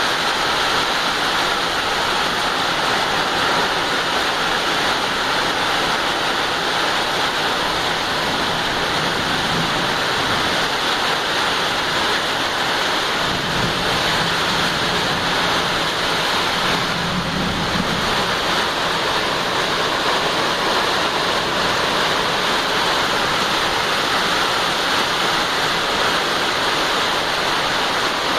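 Steady heavy rain, an even hiss of falling water. A faint low hum rises under it for a few seconds around the middle.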